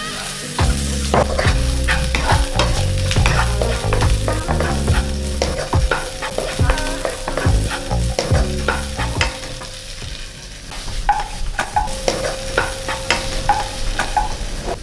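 Sausage slices, shallots and bird's-eye chillies sizzling in hot oil and butter in a nonstick wok, stirred with a wooden spatula that clicks and scrapes against the pan again and again.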